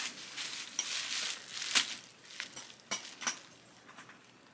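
A leather flap handbag being handled and opened: light rustling with a few sharp clicks, the loudest a little under two seconds in.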